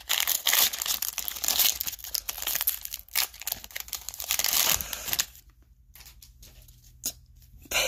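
Foil wrapper of a trading card pack being torn open and crumpled, a dense crinkling and tearing of the foil that stops about five seconds in.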